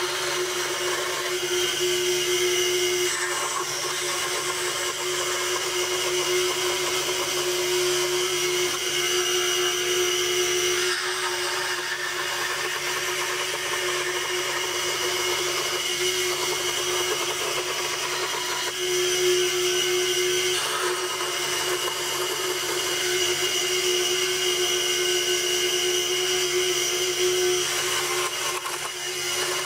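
Scroll saw running steadily, its reciprocating blade cutting through a sheet of wood.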